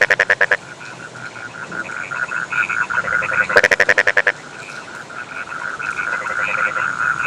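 Chorus of rice-field frogs calling, a steady run of pulsed croaks. A louder nearby frog gives a rapid rattling call of about a second twice: at the start and about three and a half seconds in.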